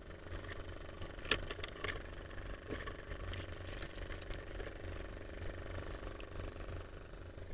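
Boots walking through low weeds and grass, giving a few soft rustles and crunches in the first half, over a low rumble of wind or handling on the body-worn camera's microphone and a faint steady hum.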